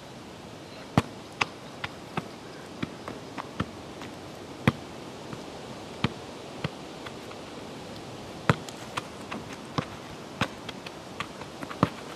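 A series of about twenty sharp, short knocks or taps at irregular intervals, roughly one to two a second, over a steady background hiss.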